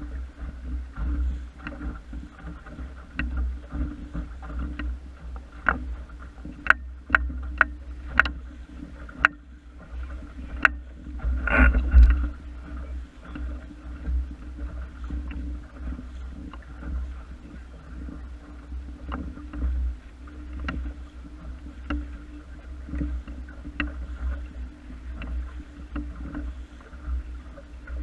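Water washing and splashing along the hull of a small wooden sailing dinghy under way, over a steady low rumble, with scattered sharp clicks and knocks that cluster between about six and eleven seconds in and a louder splash around twelve seconds in.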